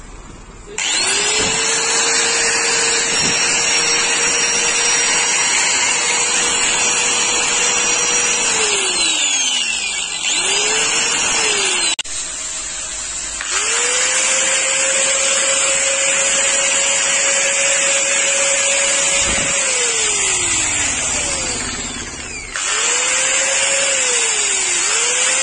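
Makita 100 mm angle grinder running free in the hand, with nothing being cut. Its whine climbs as it spins up about a second in, holds steady, then falls away as it is switched off and coasts down. It is switched on and off about five times, for two long runs and then short bursts.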